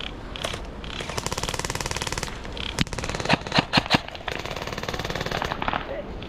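Airsoft gun firing a rapid full-auto burst of about a second, then several single sharp cracks a moment later.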